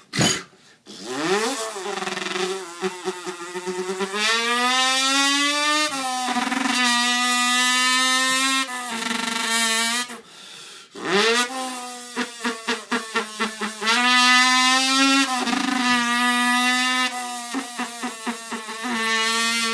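A man's vocal impression of a two-stroke dirt bike. His voice revs up in pitch and steps up through the gears, holding each high note, with choppy stuttering blips between shifts. After a short break about halfway, the run starts over.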